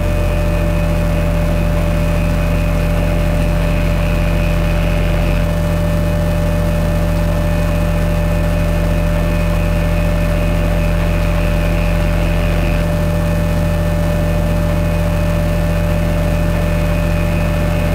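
Electronic drone music: a sustained low bass drone with a steady held tone above it and a hiss of noise, the low notes shifting about five and again about thirteen seconds in.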